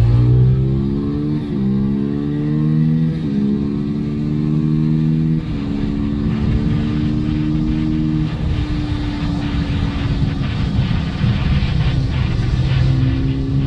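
Beta RR 125's single-cylinder four-stroke engine, its exhaust open with the dB killer removed, pulling hard through the gears. The pitch climbs and drops at each of three upshifts in the first five or so seconds, then holds and falls away as the bike slows, with a downshift near the end.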